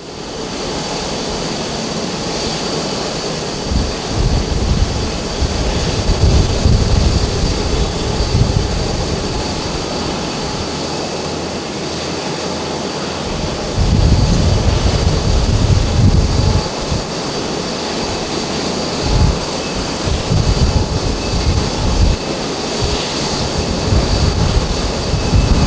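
Four GEnx jet engines of a Boeing 747-8 running on the runway: a steady rush with a thin high whine, and irregular low rumbles that swell and fade.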